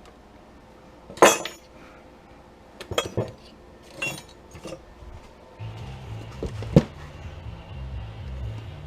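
Pieces of scrap metal clinking and clanking as they are handled and set down: a sharp, loud clank about a second in, then a few lighter clinks. Background music with a low, stepping bass line comes in a little past halfway.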